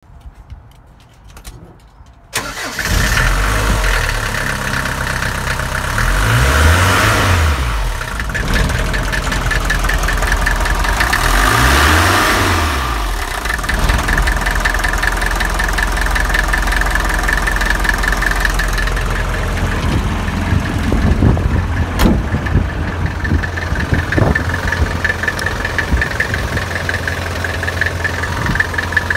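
Mercedes-Benz MB100's 2.4-litre OM616 four-cylinder diesel engine catching about two seconds in and settling to idle. It is revved up and back down twice, about six and eleven seconds in, then idles steadily.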